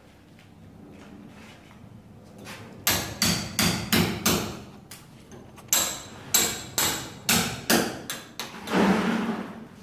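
Hammer blows on a brick wall being knocked out: about a dozen sharp strikes in two quick runs, starting about three seconds in, with a longer, rougher noise just before the end.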